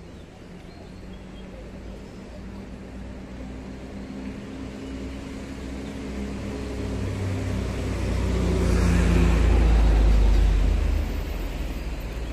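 A motor vehicle approaching and passing close by: its engine grows steadily louder, is loudest with a rush of tyre noise about nine seconds in, then fades.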